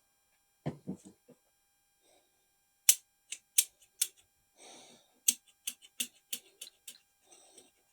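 Window lock hardware being handled and fitted: a couple of dull knocks, then a run of about a dozen sharp, irregular clicks with a brief scrape partway through.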